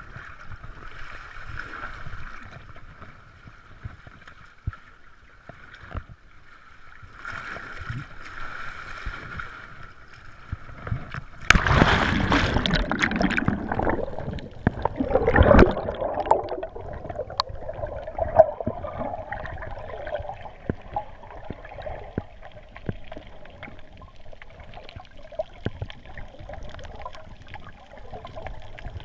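Quadcopter motors whining at a steady pitch that swells twice. Partway through comes a loud rush of noise and a sharp thump. After it, a lower, wavering whine runs to the end.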